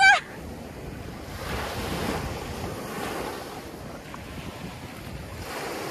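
Small waves washing up onto a sandy beach, a steady hiss of surf that swells and ebbs, with wind on the microphone. A brief high, wavering call sounds right at the start.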